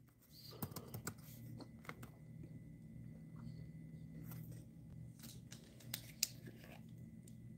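Faint, irregular clicks of a laptop keyboard being typed on, two slightly sharper taps about six seconds in, over a faint low hum.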